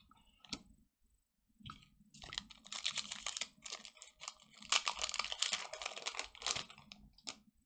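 Foil wrapper of a Pokémon card booster pack crinkling and tearing open, in two long crackly rustling stretches, with a few sharp clicks before and after.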